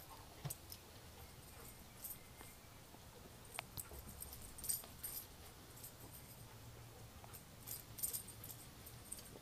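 Faint metallic jingling in a few short bursts, with scattered light clicks: a dog's collar tags jangling as the dog sniffs and runs about.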